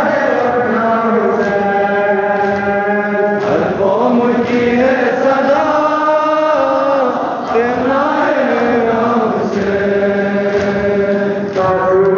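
Male mourners chanting a noha, a Shia Muharram lament for Imam Hussain, in long held, sliding sung lines. Faint regular beats of matam, about one a second, run beneath the chant.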